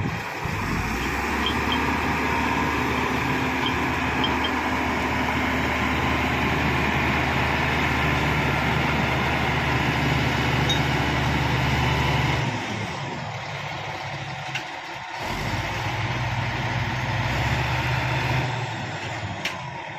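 Shantui SD16 crawler bulldozer's diesel engine running steadily, easing off for a few seconds about two-thirds of the way through, then building back up.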